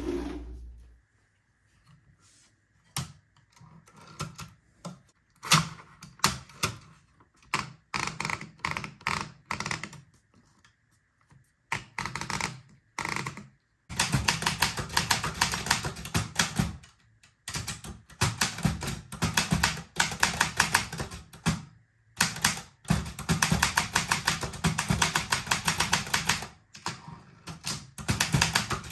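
Olympia SF portable typewriter being typed on: scattered single keystrokes at first, then from about halfway through a fast, steady run of keystrokes broken by a few short pauses.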